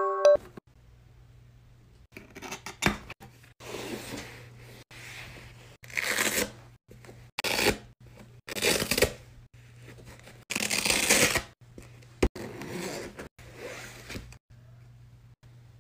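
Plastic shrink wrap being torn off and the packaging handled: a series of short tearing, rustling noises, about eight over some twelve seconds, with a sharp click about twelve seconds in.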